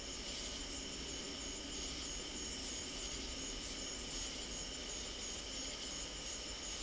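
Night insect chorus, crickets trilling steadily and high-pitched with a slight regular pulse, over a faint hiss.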